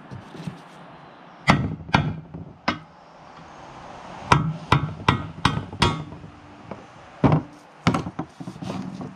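Hammer striking a metal drift held against the old front crankshaft seal in an engine timing cover, driving the seal out: about a dozen sharp metal knocks in three irregular groups, with a few lighter taps near the end.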